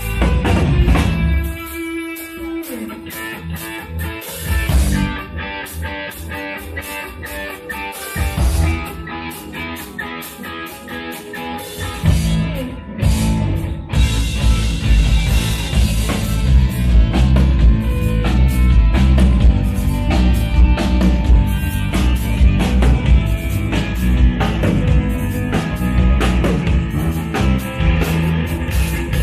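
Live band playing rock music: electric guitar and drum kit with electric bass guitar. For the first dozen seconds the bass drops out at times and the playing is lighter, then the full band comes in louder with heavy bass.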